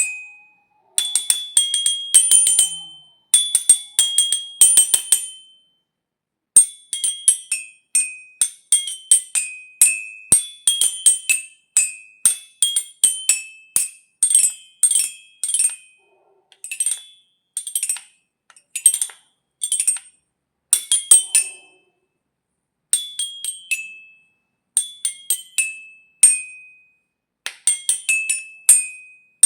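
A xylophone struck with mallets, playing quick runs of high, bright notes that each ring briefly and die away. The runs come in groups with short pauses between them.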